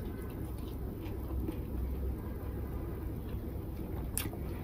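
Soft chewing of a mouthful of rice and dried fish, with a few faint clicks, over a steady low hum. One sharper click comes near the end.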